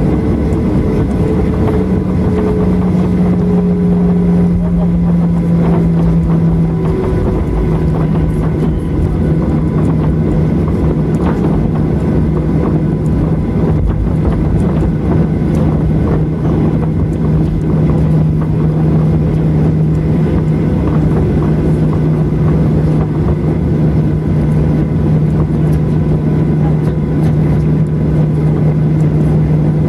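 Cabin noise of a Boeing 737-800 taxiing, heard inside the cabin from a seat over the wing: a steady hum over a low rumble. The hum drops slightly in pitch about seven seconds in.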